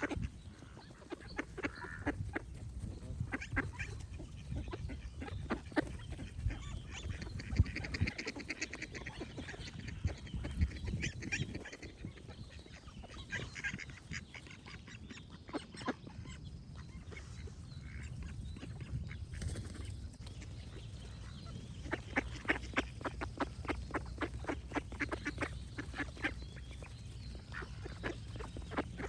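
Ducks quacking in runs of quick, short calls, with a steady low background sound beneath them.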